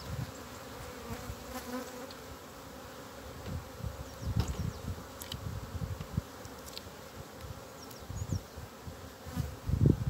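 Honeybees buzzing around an open hive, a steady hum, with scattered low rumbles and a louder low rumble near the end.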